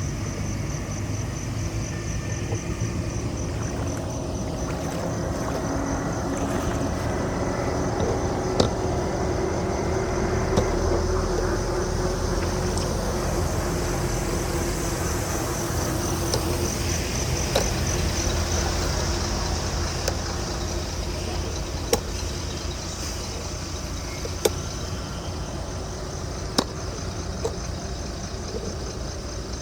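Floodwater rushing steadily into a storm drain, with a low rumble underneath and a fast, high-pitched pulsing above it. Sharp knocks sound about half a dozen times, spread through the second half.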